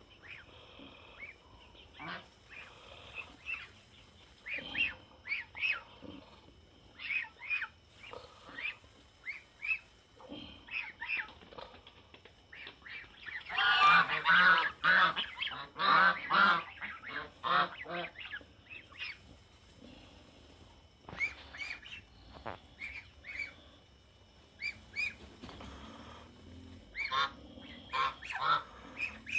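A flock of domestic geese honking as they feed, with short scattered calls throughout. About fourteen seconds in comes a loud stretch of many overlapping honks lasting some four seconds.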